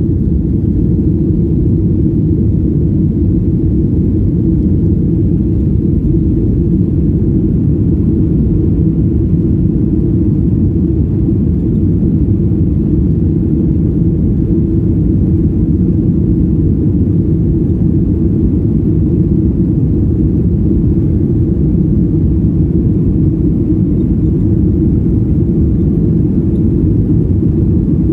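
Cabin noise of a Boeing 737-800 taxiing: a steady low rumble from its engines at taxi power and the aircraft rolling along the taxiway, heard from inside the cabin.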